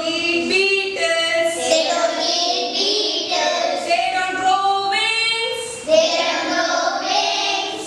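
Young girls singing a classroom poem set to a simple tune, with held notes running phrase into phrase.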